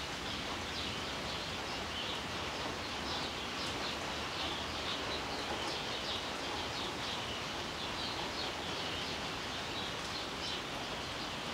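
Heavy rain falling steadily, with many short, high chirps over it.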